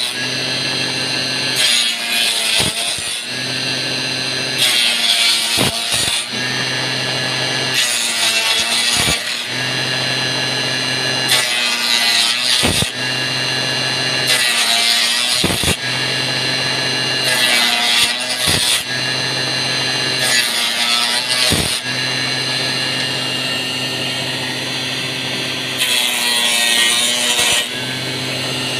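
A homemade wood-turning machine rounding square wooden sticks into flag handles. Its motor hums steadily, and each stick fed through brings a harsh rasping cut of a second or two, again every few seconds. Sharp knocks are scattered through it.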